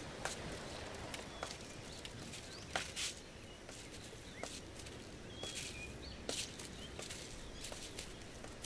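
Quiet outdoor ambience with a few short bird chirps and scattered light clicks and taps.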